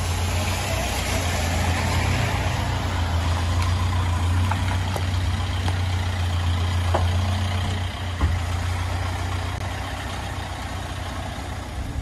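Pickup-truck songthaew's engine idling with a steady low hum, under the even hiss of rain on a wet road. A single knock about eight seconds in.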